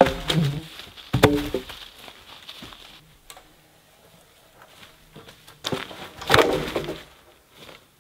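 Dry deadwood poles knocking and clattering together as they are handled and dropped. There are clatters at the start, again about a second in, and a longer run of knocks around six seconds in, with the crunch of dead branches and leaf litter between them.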